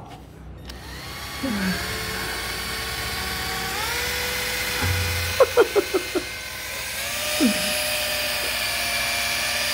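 Milwaukee cordless drill running with a steady whine as it bores a hole through an aluminium scooter frame. Its pitch steps up three times as the motor speeds up, and a few short clicks come near the middle.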